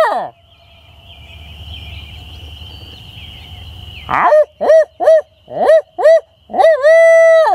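A man hooting an imitation of a barred owl with his own voice as a turkey locator call, meant to make roosted gobblers answer. A long hoot fades out at the start. About four seconds in comes a quick run of six short hoots, then a long drawn-out hoot that drops at the end.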